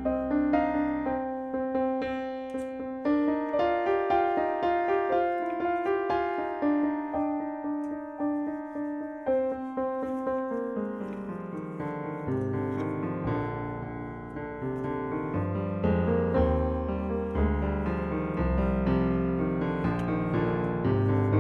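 Background piano music, a steady run of notes, with deeper bass notes filling in about halfway through.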